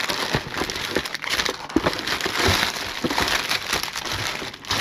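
Product packaging crinkling and rustling as items are rummaged through in a box, with many small knocks and clicks of things being moved.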